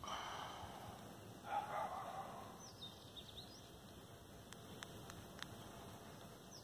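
Faint outdoor ambience: birds chirping in short rising and falling calls, and two brief bursts of noise near the start, the louder one about a second and a half in. A few sharp clicks follow in the second half, while a palm squirrel nibbles a nut.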